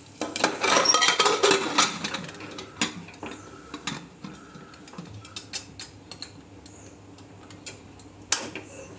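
Aluminium pressure cooker lid being set on and its handles closed: a dense metal clatter for the first two seconds, then scattered clicks and knocks, with one sharp click near the end.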